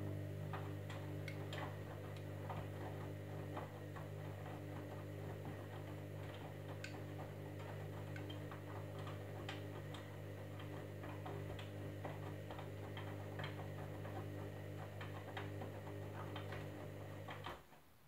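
Candy Grand'O Vita front-loading washing machine turning its drum during the wash cycle: a steady motor hum with irregular light clicks and taps as the wet load tumbles. The drum motor stops suddenly near the end as the wash pauses between turns.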